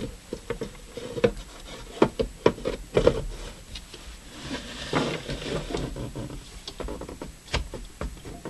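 Radio chassis being slid back into its cabinet and handled: a string of knocks and clunks, with scraping in the middle as it slides in.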